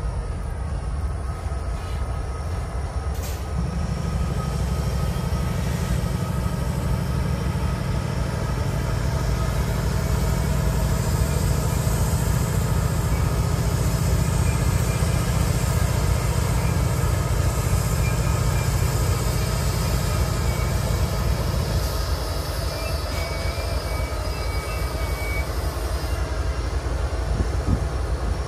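Kansas City Southern diesel-electric locomotive running as it rolls past with freight cars: a steady, heavy low rumble of the diesel engine mixed with wheels on the rails.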